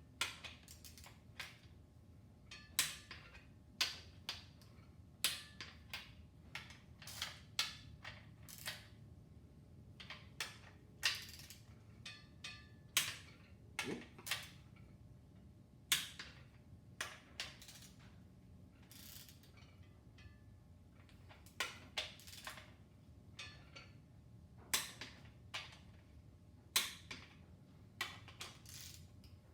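Torque wrench on the main bearing cap bolts of an engine block, tightening them to a first pass of 50 ft-lb: a long string of sharp ratchet clicks and metal clacks at uneven intervals.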